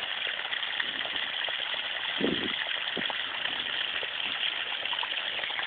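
Running water flowing steadily into a flooded taro patch, an even hiss. A brief low sound about two seconds in.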